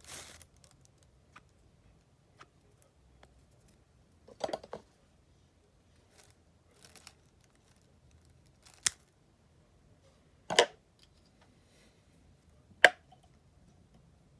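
Small fly-tying scissors snipping several times, short separate cuts a couple of seconds apart, the last three the sharpest, as materials are trimmed on the fly.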